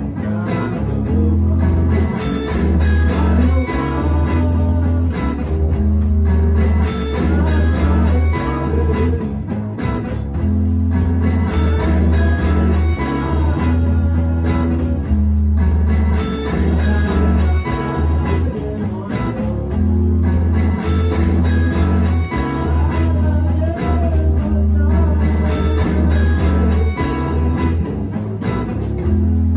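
Live blues-rock band music: an electric guitar playing over a heavy, pulsing bass line.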